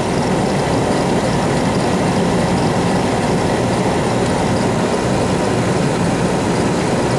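Fuel-oil furnace running: a steady, unchanging low rumble from the oil burner and blower.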